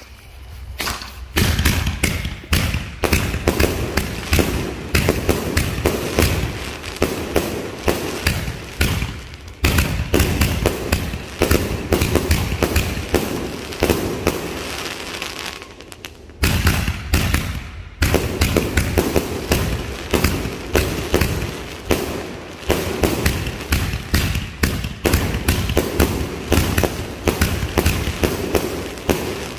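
A 66-shot 'Rooster Turns Colors' consumer firework cake firing, a rapid string of launch thumps and aerial breaks cracking overhead. It dips briefly about halfway through, then picks back up.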